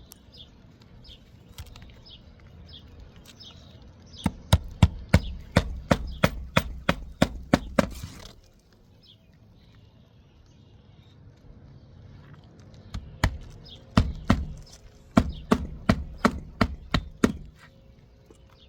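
Hand hammer driving roofing nails into shingles: two runs of sharp, even blows, about three a second, each run lasting about four seconds.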